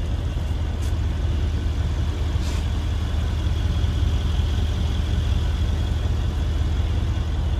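A steady low engine hum with an even background rush, unchanging throughout.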